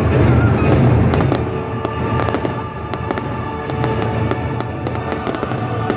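Fireworks bursting, with many sharp irregular cracks and pops over the show's soundtrack music.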